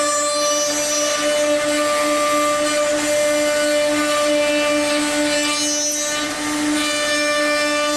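High-speed router motor of a CSR-750 CNC stair router running at a steady high whine while its bit cuts a housing groove into a wooden stair stringer, with the rushing noise of the cut. The sound eases briefly about six seconds in.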